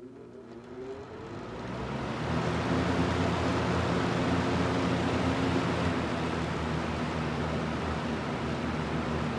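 Sears 20-inch three-speed box fan starting up: its motor hum rises in pitch as the blades come up to speed over about two seconds, then it settles into a steady rush of air, running on low.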